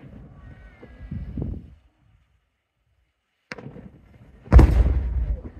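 Fireworks shells bursting with low, rolling booms. One boom fades within the first two seconds, and a second, much louder burst comes near the end and rumbles for about a second.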